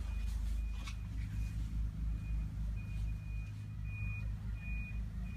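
A vehicle's reversing alarm beeping, a high single-pitched beep repeated a little over once a second, over a steady low engine-like rumble.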